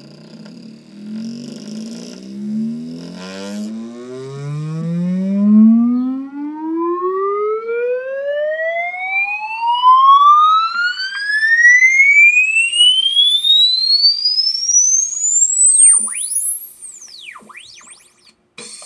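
Test-sound cassette played through the Pioneer CK-3 system's speaker with its replacement woofer. Low buzzy tones step upward in pitch for the first few seconds. Then a single tone glides steadily up from deep bass to a very high whistle over about twelve seconds, with fainter overtones above it, and fades out near the end.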